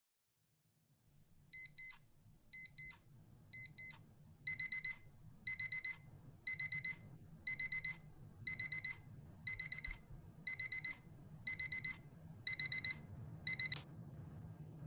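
Electronic alarm clock beeping, a quick cluster of high beeps about once a second, softer for the first few then louder. It stops near the end as the alarm is switched off by touch. A steady low hum runs underneath.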